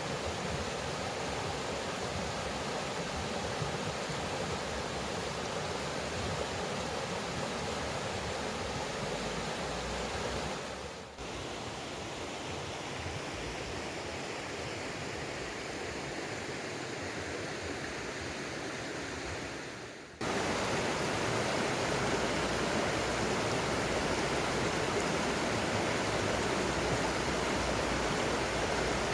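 Mountain stream water rushing steadily. It breaks off briefly twice, and after the second break the rush is louder.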